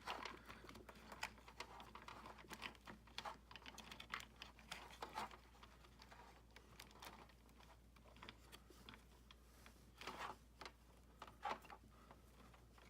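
Faint irregular clicks and rustles of a USB cable being threaded through a small robot car's chassis, with a few louder clicks near the end.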